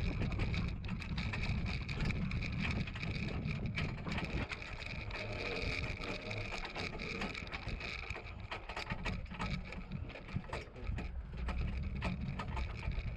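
Metal pony cart rolling over rough dirt behind a miniature pony, its frame and shafts rattling and clicking, over a steady low rumble.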